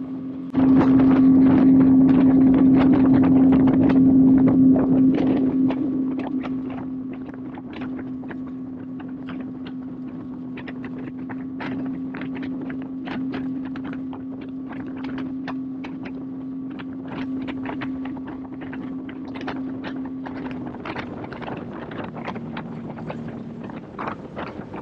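Motorboat engine running at speed. It gets suddenly louder about half a second in, then eases after about five seconds to a steady lower level. Short sharp slaps of the hull on the water sound throughout.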